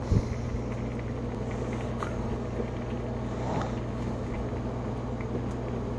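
A steady low hum, with one low thump just after the start and a few faint clicks and knocks.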